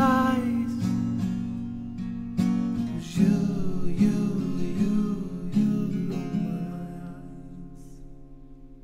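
Acoustic guitar strumming, the song's closing chords fading out slowly.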